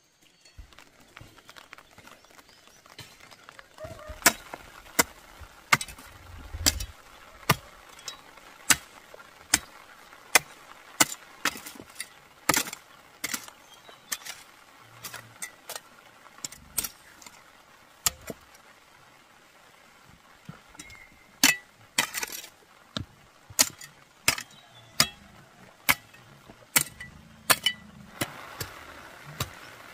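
Metal hoe blade striking dry, stony soil: a string of sharp, irregular chinks and knocks, roughly one a second, starting a few seconds in.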